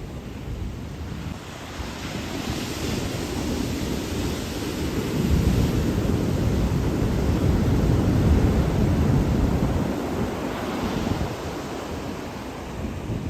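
Ocean surf washing on a shore, with wind buffeting the microphone. The sound swells from about two seconds in, is loudest and deepest in the middle, and eases off near the end.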